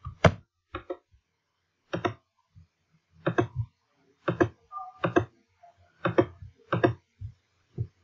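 Clicks and taps of a computer mouse and keyboard, about ten short separate strokes at irregular intervals, as code is selected, copied and pasted.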